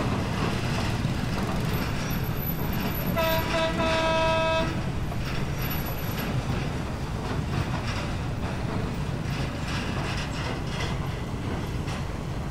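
Steady low rumble of tugboat engines pushing a container ship in to the berth. About three seconds in a horn sounds: two short toots, then one held for about a second.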